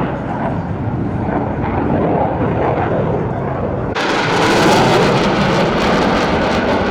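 Jet noise from Blue Angels F/A-18 Hornets flying past. About four seconds in it jumps suddenly to a louder, brighter hiss, as a jet comes close.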